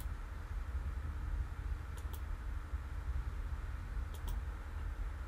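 Two pairs of faint computer mouse clicks, about 2 and 4 seconds in, over a steady low hum of room tone.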